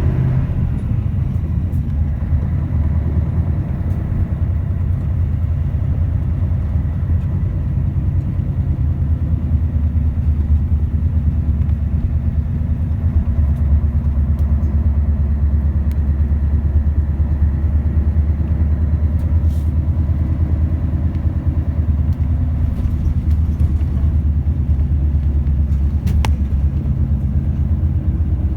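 Steady low rumble of a city bus's engine and running gear heard from inside the cabin, a little louder in the middle stretch, with a couple of faint clicks.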